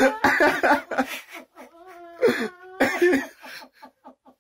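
A woman crying and sobbing, her voice breaking in uneven cries, with a falling wail about halfway through and then a quick run of short catching breaths that fade out near the end.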